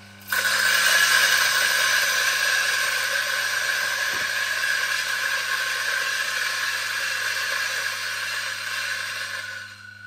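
Mazzer Super Jolly flat-burr grinder with 233M burrs, modified for single dosing, grinding a single dose of lightly roasted coffee beans. Loud grinding starts about a third of a second in as the beans reach the burrs, eases off and drops away near the end as the burrs run empty, leaving only the motor's hum.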